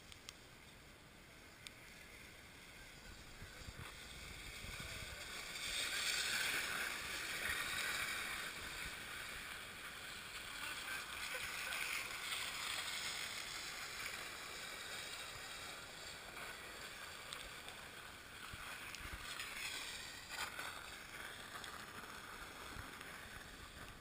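Sleds scraping and sliding over an icy, slushy street. The scrape fades in a few seconds in, is loudest soon after, and carries on with smaller swells until it tails off near the end.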